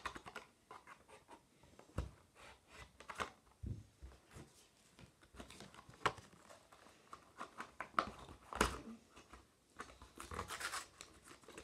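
Scissors scraping and snipping at toy car packaging, with irregular scratchy clicks, rustling and a few louder knocks as the package is worked open and handled.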